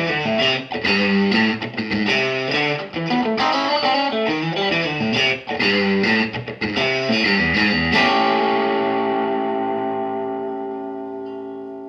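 Ibanez AZES31 electric guitar played through a Mesa Boogie Express 5:25 tube amp: a run of quickly picked notes and chords, then a final chord struck about eight seconds in and left ringing as it slowly fades.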